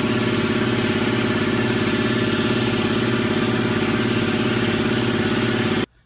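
Power tool running steadily on a bolt, a loud buzz with a fast, even pulse, as the instrument-panel support bolt is run out of the firewall; it stops abruptly near the end.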